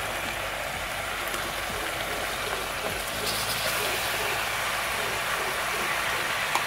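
Reduced braising sauce sizzling in an aluminium pot on a gas stove, a steady hiss as the duck browns in it. A spoon clicks once against the pot near the end.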